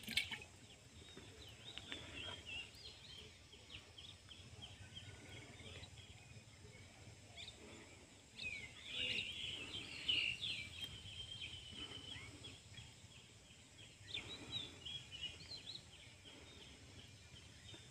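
Small birds chirping and twittering in quick, busy strings, most intense about eight to eleven seconds in, over a faint low rumble.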